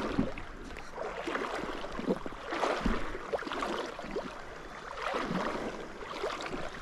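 Shallow river water splashing and swishing around the legs of a wading angler, rising and falling in a few irregular surges.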